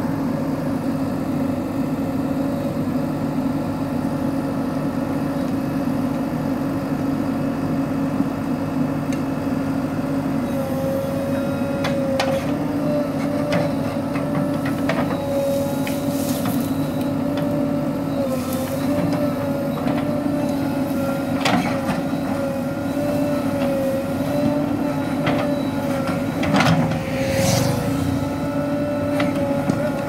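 JCB 3DX Super backhoe loader's diesel engine running steadily while the backhoe arm works, with a steady whine joining about ten seconds in. Short knocks and scrapes of the bucket come through in the second half, the loudest a little before the end.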